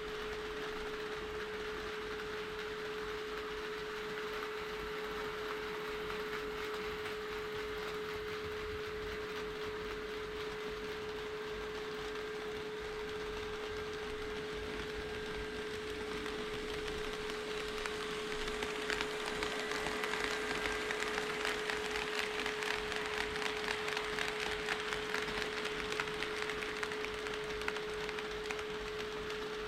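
HO-scale model train running over sectional track: rapid clicking of its wheels over the rail joints grows louder about two-thirds of the way in as the train passes close, then dies away near the end. A steady high-pitched hum runs underneath throughout.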